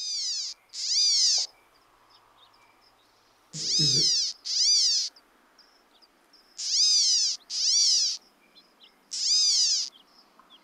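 Coastal California gnatcatcher giving its kitten-like mewing calls: seven slurred mews that rise and fall in pitch, each about half a second long, mostly in pairs.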